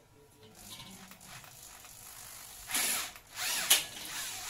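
Handheld electric drill run in two short bursts against the corner of a galvanized hollow-steel frame, starting a little past the middle. The second burst is longer and louder.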